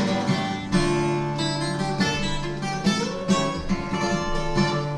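Acoustic guitar playing an instrumental passage between sung verses, with strummed chords and plucked notes.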